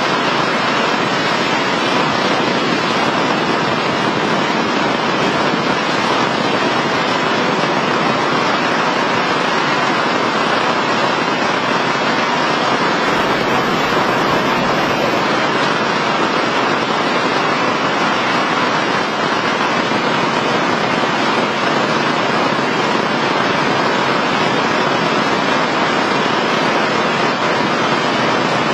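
Heavy rain falling, a steady dense hiss that keeps up without a break.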